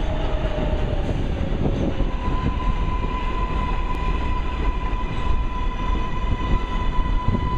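R188 subway train pulling into the station, its cars rolling past close by with a steady rumble of wheels on rail. A whine falls in pitch in the first two seconds, then a steady high tone holds from about two seconds in.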